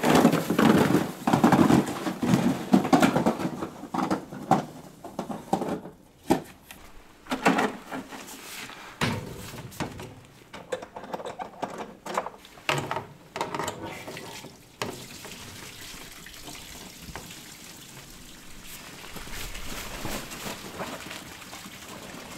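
Snow shovel pushing and scraping through light, fluffy snow in a run of irregular strokes, which die away about fifteen seconds in.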